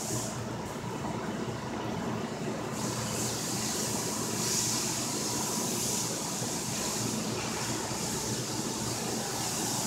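Steady mechanical background noise, a low rumble with a high hiss that grows stronger about three seconds in.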